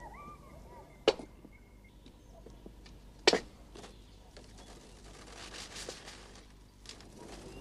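Two sharp knocks about two seconds apart, over faint bird chirps in the first moments.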